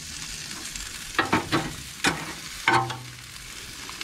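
Jerk chicken sizzling steadily on the wire grate of a drum grill. A metal spatula scrapes and clinks against the grate about five times in the middle as the chicken is turned.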